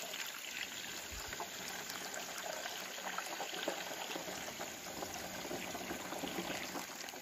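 Herbicide solution poured in a steady stream from a bucket into a knapsack sprayer's tank through the mesh strainer in its filler opening, water splashing into the liquid already inside. The pour stops near the end.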